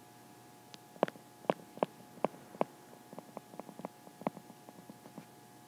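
A stylus tip tapping and clicking on a tablet's glass screen while numbers are handwritten: about a dozen short, sharp clicks at uneven spacing.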